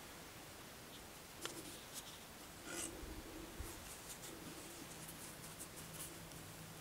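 Faint handling noise of a gloved hand turning a palm-leaf cross: a few soft clicks and rustles over a steady hiss, with a brief scrape about three seconds in.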